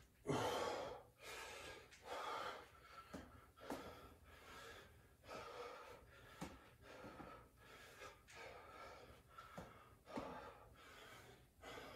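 A man breathing hard during a bodyweight exercise, with forceful breaths about once a second, the loudest just after the start. A few faint thuds of feet on a wooden floor come in between.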